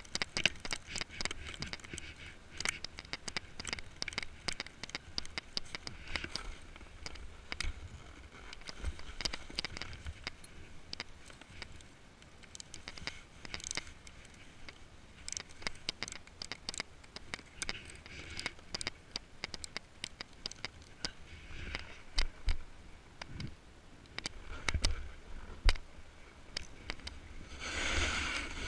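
Snowboard bindings being done up: scattered clicks of the ratchet straps among scraping and rustling of gloves and jacket. Near the end the board sets off, sliding on snow with a steady hiss.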